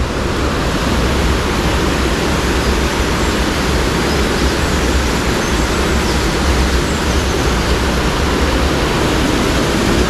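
A mountain stream's rushing water, loud and steady.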